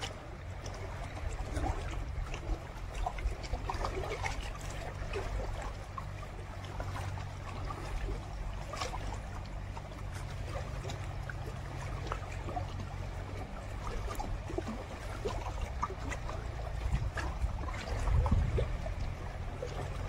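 River water lapping and trickling among the rocks at the bank, with scattered small ticks and splashes, over a steady low rumble.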